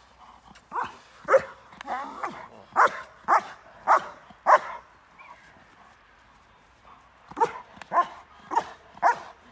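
Working-line German Shepherd barking hard at a helper in protection training, about two barks a second. It gives a run of about seven barks, breaks off for two or three seconds, then starts again near the end.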